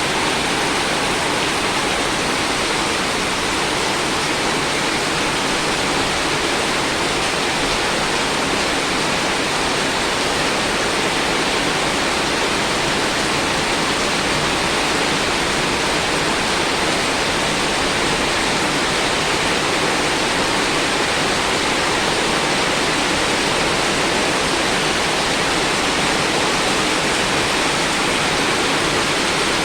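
Heavy rain falling: a steady, dense hiss that stays even throughout.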